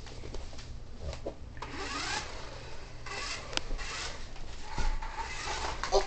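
Remote-control toy Corvette driving on a wooden floor: its small electric motor and wheels whirring and rubbing in uneven spurts, with a few sharp clicks.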